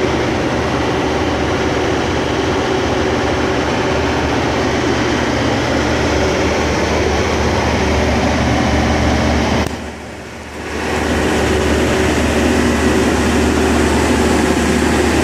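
Katolight 60 kW standby diesel generator running steadily at constant speed, its five-cylinder John Deere diesel engine humming inside a sound-attenuating enclosure. The sound drops briefly about ten seconds in, then comes back.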